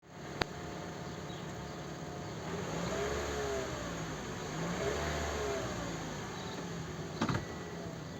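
Toyota 3ZR-FAE 2.0-litre four-cylinder petrol engine running, revved up and back down twice. It has the chain ringing and diesel-like drone that the owner takes for a timing chain fault. There is a sharp click about half a second in and a knock near the end.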